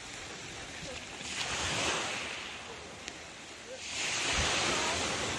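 Surf washing on the shore, a steady hiss that swells twice, with a few faint short rising chirps.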